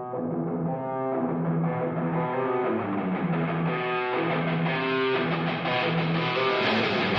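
Outro music: a guitar playing a repeating pattern of notes over a steady low note.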